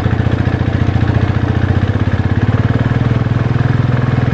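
Motorcycle engine running steadily while riding, with an even, rapid pulse.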